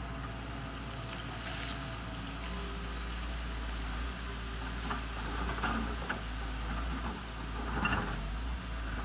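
Doosan DX140W wheeled excavator's diesel engine running steadily under load while it digs, with a few short knocks and scrapes of the bucket working rock and soil in the second half.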